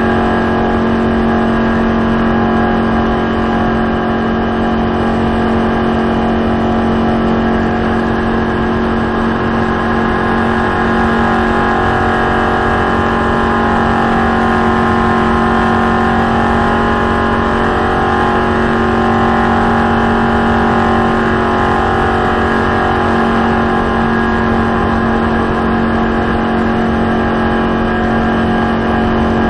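Stock car's V8 engine running at steady high speed, heard from inside the cockpit together with wind and road noise. The pitch holds nearly constant throughout, with no gear changes or lifts.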